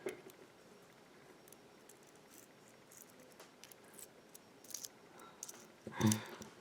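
Faint, scattered small metallic clicks and ticks of a pin-tumbler lock's plug and parts being handled, with a short louder sound near the end.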